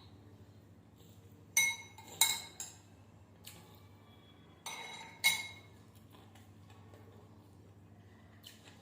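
A spoon or other eating utensil clinking against a plate about five times. The sharp strikes ring briefly and come in two clusters, around two seconds in and around five seconds in.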